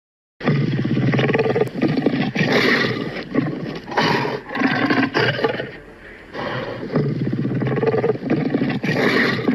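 Dragon roar sound effect: a deep, rough, growling roar that starts suddenly about half a second in and goes on in swells, easing briefly about six seconds in before rising again.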